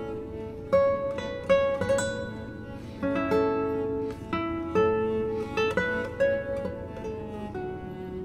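Background music of a plucked-string instrument, a guitar-like tune of single notes and chords picked one after another, each note starting sharply and dying away.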